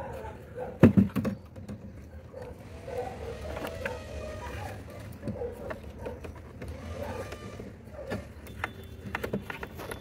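Tie wire being twisted tight around wooden concrete formwork with a claw hammer used as a lever: a sharp knock about a second in, then scattered clicks, creaks and scraping as the wire tightens against the boards.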